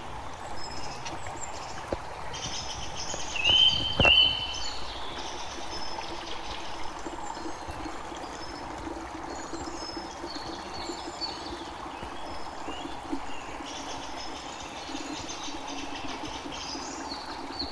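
Water running from the spigot of a plastic rainwater tank into a plastic bucket: a steady trickle and splash. Birds chirp throughout, with one louder call just before four seconds in.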